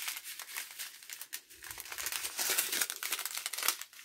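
Clear plastic bags of diamond painting drills crinkling continuously as they are handled and unfolded, a dense crackle with many small ticks, loudest a little after halfway.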